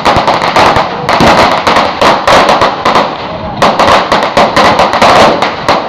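Firecrackers going off in rapid, loud runs of sharp cracks, with a short break about three seconds in and stopping just before the end.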